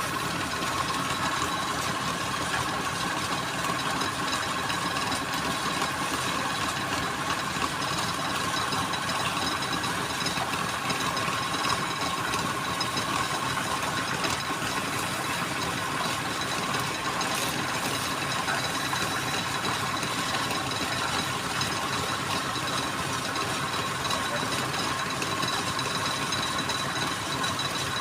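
Wood lathe running steadily, its motor giving a constant mechanical hum with a thin steady whine.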